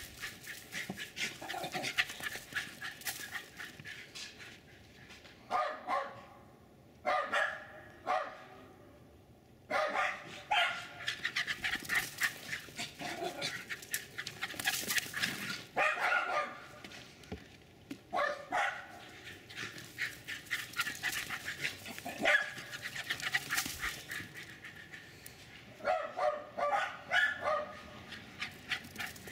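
Jack Russell Terriers barking excitedly in repeated bursts of rapid barks, about eight bursts a few seconds apart, with short clicks and scuffs in the gaps.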